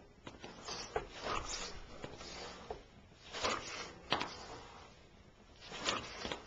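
Dirt bike's rear suspension being bounced by hand, with S&W shocks fitted with standard springs compressing and rebounding. It gives a series of short rushing, rasping noises, roughly one every second or so, grouped around the compressions.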